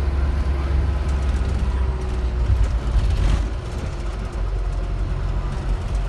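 Bus engine and road noise heard from inside the cabin while driving: a loud, steady low rumble with a faint engine hum above it.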